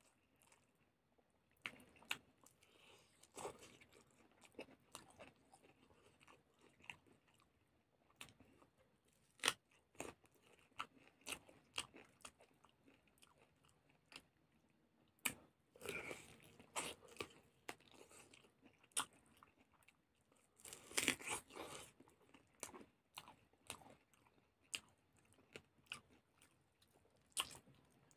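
Chewing of rice and chicken leg eaten by hand, with many short, sharp crunches and smacks throughout. There are louder stretches of chewing about 16 and 21 seconds in.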